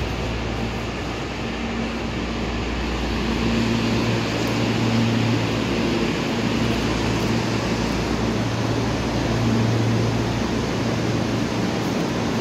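Steady hum of a Kobe Municipal Subway 6000-series train standing at the platform, its air conditioning and on-board equipment running while it is stopped. A low drone swells up about three seconds in and again near the end.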